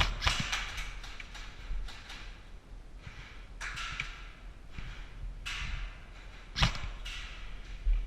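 Scattered sharp knocks and cracks from an airsoft game in close quarters, with short rustling stretches between them. The loudest crack comes about six and a half seconds in.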